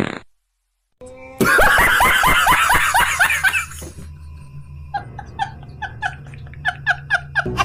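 Laughter: a brief silence, then a loud burst of rapid ha-ha-ha pulses, about four a second, followed after a pause by a quieter run of giggles.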